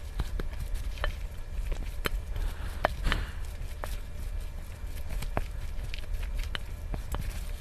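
A spoon mixing bibimbap in a stainless steel bowl: irregular clinks and taps of the spoon against the bowl as the rice and vegetables are tossed together.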